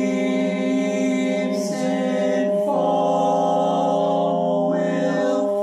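Four-part male barbershop quartet (bass, baritone, lead, tenor) singing a cappella in close harmony. The voices hold sustained chords, moving to a new chord twice in the first three seconds, then hold one long chord.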